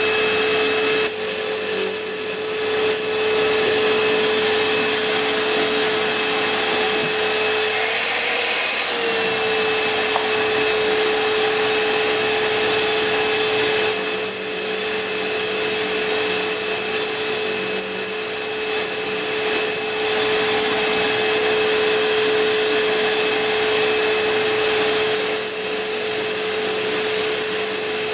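Tool and cutter grinder running, with its noisy motor, while a vacuum cleaner hose sucks dust at the wheel as a diamond dresses the stone. A steady whine over a rush of air, its pitch rising briefly about eight seconds in, with a thin high whistle that comes and goes.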